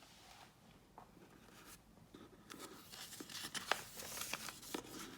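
Paper rustling and crinkling with a few sharp ticks, as a picture book's page is handled and turned. It starts about two seconds in.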